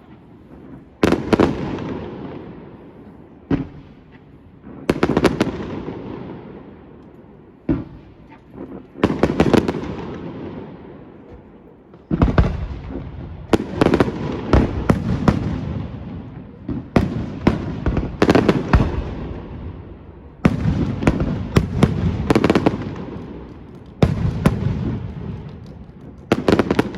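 Aerial fireworks bursting: sharp bangs each followed by a long rumbling echo. Single shells come a few seconds apart at first, and from about halfway through the bursts come in quicker clusters.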